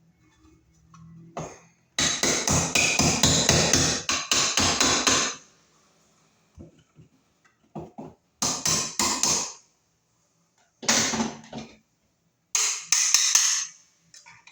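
Handling noise from hand work on wiring: four bursts of rapid clattering and rattling. The longest starts about two seconds in and lasts about three seconds; three shorter ones follow.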